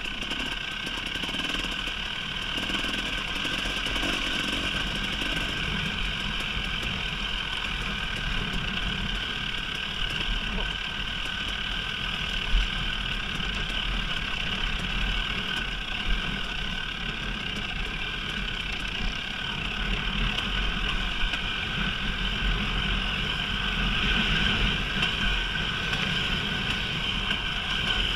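KTM 300 EXC two-stroke single-cylinder dirt bike engine running steadily as the bike is ridden, with two sharp knocks partway through.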